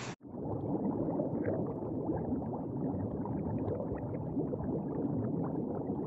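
Underwater ambience sound effect: steady, muffled bubbling and gurgling that begins abruptly just after the start.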